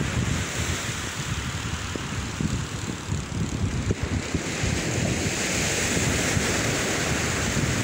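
Wind buffeting the microphone in gusts, over the steady hiss of surf on the beach, the hiss growing stronger about five seconds in.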